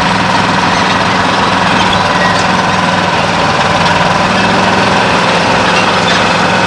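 Engine of a vintage crawler tractor running steadily as it moves slowly past, a constant low hum with no change in pace.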